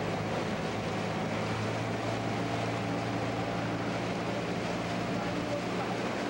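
Small motorboat's engine running steadily at cruising speed, a constant hum, with the rush of water and wind beneath it.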